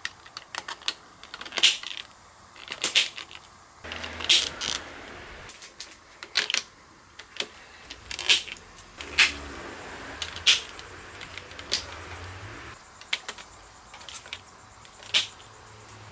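Marbles running down a marble run's plastic spiral slides and wooden board: a steady low rolling with many sharp clacks and clicks at uneven intervals as they hit the track and one another.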